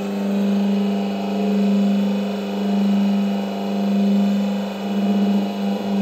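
Hydraulic press's pump motor humming steadily as the press closes its grooved bead-forming mould. The hum swells and fades slowly about once a second and turns rougher and more uneven near the end.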